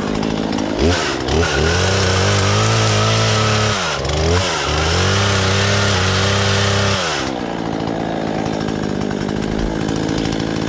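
Husqvarna 120 Mark III two-stroke chainsaw idling, then opened up to full throttle twice: about a second in it revs up and holds high for about three seconds, dips briefly, revs up again, and drops back to idle about seven seconds in.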